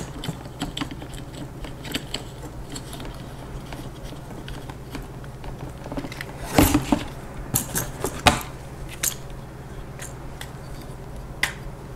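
Handling of a milled-aluminium camera gimbal: scattered clicks and light metallic clinks as the camera is shifted on its mount, loudest a little past the middle. A steady low hum runs underneath.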